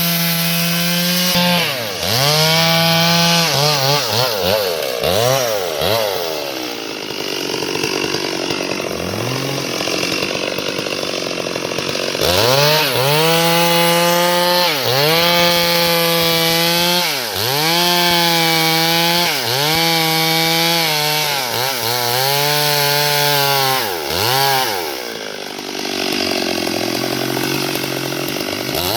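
Chainsaw cutting wood at high revs, its engine pitch dipping sharply and recovering again and again as the chain bogs into the cut, with steadier stretches between.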